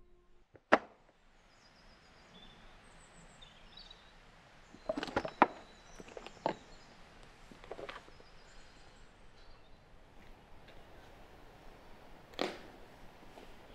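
Woodland ambience with small birds chirping and a few sharp snaps and crunches. The loudest snap comes about a second in, and a cluster of them comes around five seconds in.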